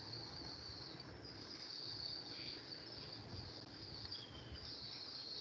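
Faint, steady high-pitched chirring of crickets in the background, with a short falling whistle about four seconds in.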